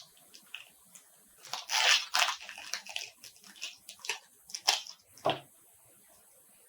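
Foil wrapper of a Pokémon card booster pack being torn and crinkled in short irregular bursts, stopping about five and a half seconds in.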